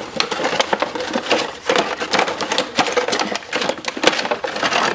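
Clear plastic blister packaging crackling and a cardboard box rustling and scraping as a boxed toy is worked out of its box: a dense, continuous run of crinkles and clicks.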